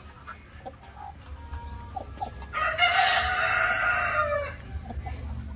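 A rooster crows once, starting about two and a half seconds in and lasting about two seconds, its pitch falling at the end. A few short chicken calls come just before it.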